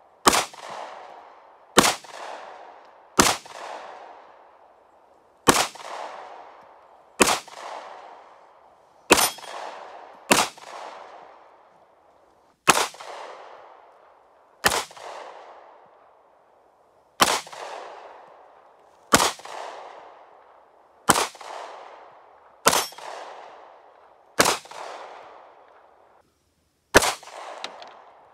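Pistol fire: about fifteen single handgun shots, one every one and a half to two and a half seconds, each trailing off in an echo.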